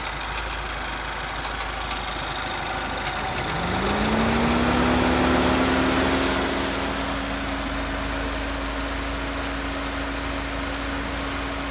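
Mini Cooper S R56 facelift's 1.6-litre turbocharged four-cylinder idling warm, with the rattle that shows up when the engine is at temperature. About three and a half seconds in, a hum rises in pitch and then holds steady.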